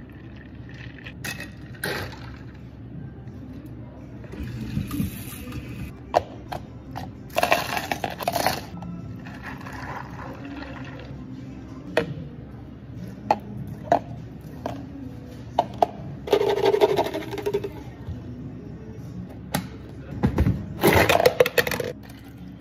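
Bubble tea being made at a café counter: a long metal bar spoon stirring in a plastic cup, and clear plastic cups set down and handled with sharp clicks and knocks. Three short noisy rushes of ice and liquid being poured or shaken come about 8, 17 and 21 seconds in.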